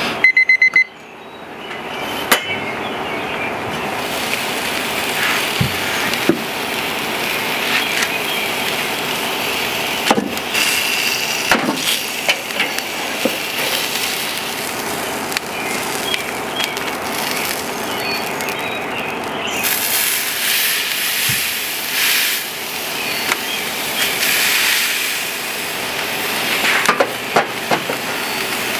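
Ribeye steak sizzling on the hot grate of a Weber charcoal kettle grill, with scattered clanks of the lid, a metal spatula and a grill press set on the meat. The sizzle grows louder and brighter about two-thirds of the way through.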